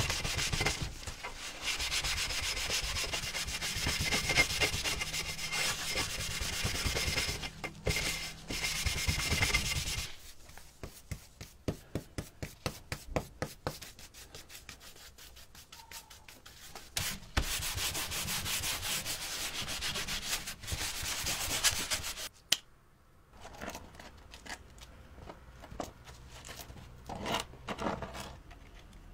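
Sanding on the antique teapot: about ten seconds of continuous scraping, then several seconds of quicker separate strokes. Another spell of continuous sanding follows, and it trails off into a few light scrapes near the end.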